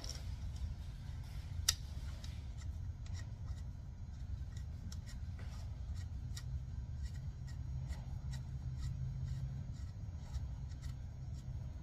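Nuts being spun onto the injection pump's mounting studs by hand: scattered light metallic clicks and rubbing, with one sharper click about a second and a half in, over a steady low hum.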